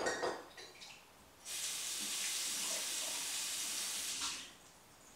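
A few light clicks, then water running in a steady stream for about three seconds, starting about a second and a half in and stopping about four seconds in.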